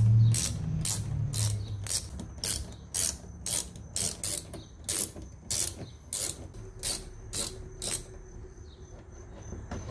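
Quarter-inch drive ratchet clicking, about two clicks a second, as T25 Torx screws are backed out of the bumper fascia's edge at the wheel arch. The clicks stop about eight seconds in. A low hum sounds in the first second or so.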